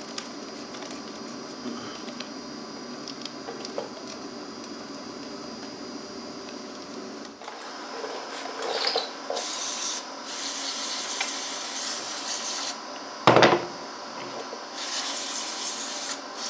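Aerosol brake parts cleaner sprayed onto a small engine part in several hissing bursts, starting about halfway through, with one sharp knock between the later bursts. Before that, faint small clicks of screws being backed out with a nut driver.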